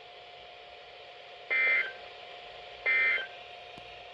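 Emergency Alert System end-of-message data bursts: two short, shrill bursts of warbling digital tones about a second and a half apart, each lasting about a third of a second. They signal the end of the alert. A faint steady tone sounds underneath.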